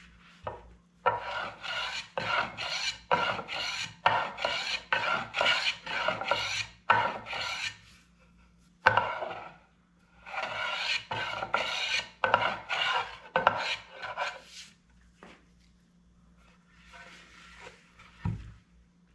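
Wood being worked by hand with a rasp or abrasive in rhythmic back-and-forth scraping strokes, about two a second, with a short break midway. A few faint strokes and a single low thump follow near the end.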